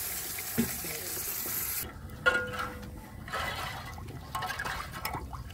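Water pouring in a steady stream from a large plastic jug into a pot of curry, stopping abruptly about two seconds in. After that, a metal ladle stirring and clinking in the metal pot.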